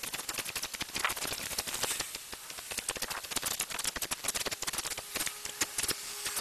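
Water in a clear plastic container fizzing as Sera Pond Algokill algaecide dissolves in it: a dense, irregular crackle of tiny bubbles popping at the foamy surface.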